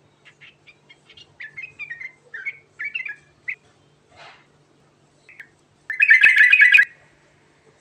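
Yellow-vented bulbul (trucukan) singing: quick bursts of short chirpy notes, then a loud harsh chattering phrase about six seconds in that lasts under a second.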